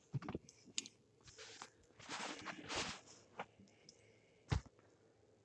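Phone being handled and repositioned: a few sharp clicks and knocks, a rustling scrape about two seconds in, and a louder knock near the end.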